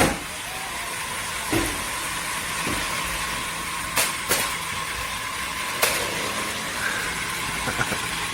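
Small electric motors of a toy remote-control stunt car whirring steadily with a constant thin whine as it drives, over a hiss of wheels on the ground. Sharp knocks come about four times as it bumps or flips.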